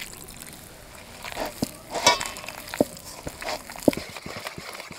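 Gram-flour and rice-flour batter being mixed in a stainless steel bowl, with scattered light clicks and taps against the bowl.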